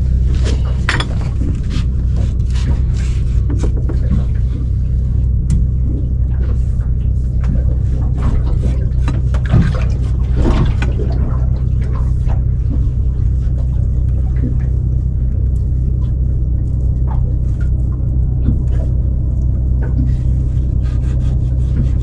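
Knife and fish being worked by hand on a boat: irregular knocks, clicks and scraping as fish is filleted for sashimi, busiest about halfway through. Under it runs a steady low hum.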